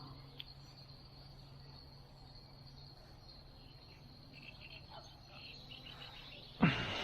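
Crickets chirring in a steady high trill over quiet outdoor ambience, with a sudden loud sound near the end.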